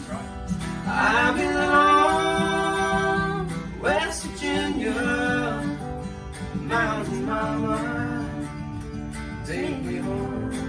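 People singing a country-style song together, accompanied by strummed acoustic guitars and a ukulele.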